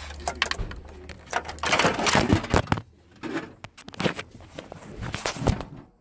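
Close handling noise of rustling, scraping and clicking, with a louder scuffing stretch about two seconds in. A low hum stops at about the same point.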